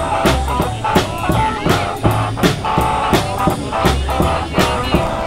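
Band music with a steady drum beat, a bass line and guitar.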